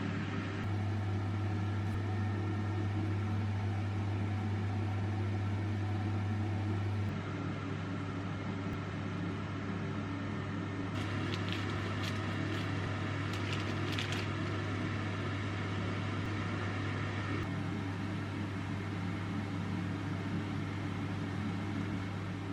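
Steady electric hum of a running kitchen appliance, with a deep drone that drops in level about seven seconds in. Light clinks come several times around the middle.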